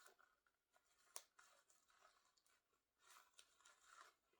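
Near silence with faint rustling and a light click about a second in: the small sounds of hands handling a doll's fabric dress while fastening it back up.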